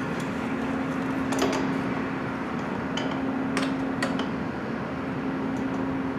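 Wrench clinking against metal air-conditioning line fittings in a car's engine bay: a few short metallic clicks and taps, two of them close together around four seconds in, over a steady low hum.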